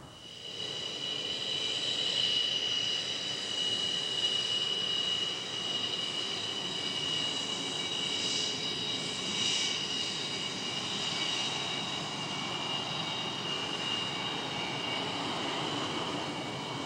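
MiG-29 fighter's twin jet engines running: a steady high whine over a broad rushing roar, swelling over the first couple of seconds and then holding.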